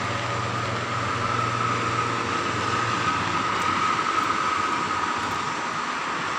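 Steady highway traffic noise: cars and a heavy truck passing on a multi-lane toll road, with continuous tyre and engine noise. A low hum fades out about three seconds in.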